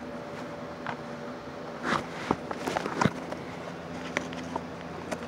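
Cats pawing at and biting an empty drink container pulled from the trash: scattered rustles, light taps and scrapes, the loudest about 2 and 3 seconds in, over a faint steady hum.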